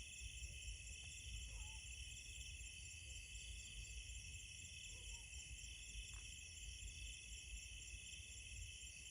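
Night-time insect chorus: crickets trilling steadily in several high pitches, with a faint low rumble underneath.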